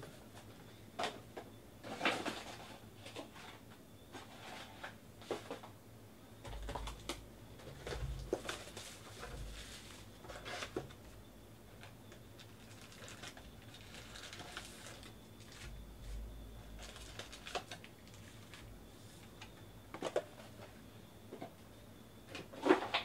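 Cardboard trading-card hobby box and foil card packs being handled: the box flap opened, packs slid out and set down, with scattered taps and rustles and a sharper knock near the end.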